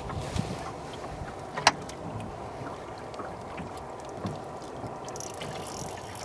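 Steady noise of water and wind around a boat on a river, with light knocks and one sharp knock about a second and a half in.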